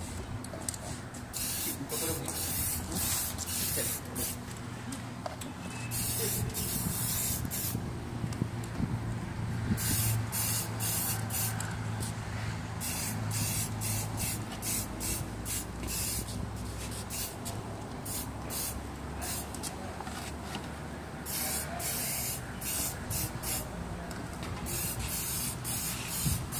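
Spray paint hissing out of a nozzle in repeated bursts, some brief, some a second or two long, with short pauses between, as the ice box is coated.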